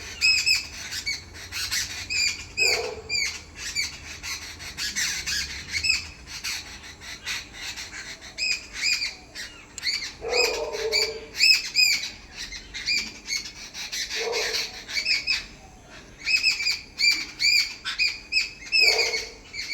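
A bird calling loudly with rapid, repeated short chirping notes, broken every few seconds by a lower, harsher call.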